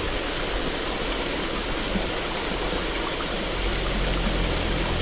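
Steady rushing of a small stream's flowing water.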